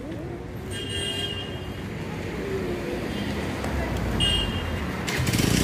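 Road traffic noise with faint voices, and two brief high-pitched tones. Near the end a vehicle engine close by grows suddenly loud.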